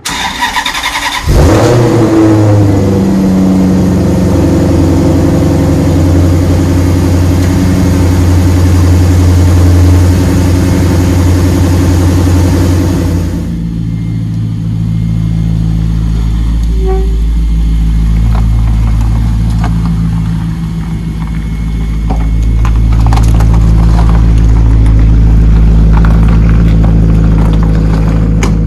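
Maserati GranTurismo V8 starting about a second in, its revs flaring and falling back to a steady idle. Later it runs on as the car moves off, rising in level near the end.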